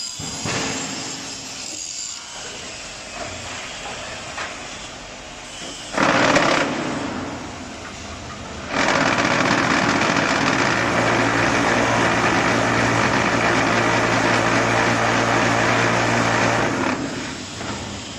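QTJ4-25D concrete block machine working: a short loud burst about six seconds in, then a loud steady low hum for about eight seconds that stops shortly before the end.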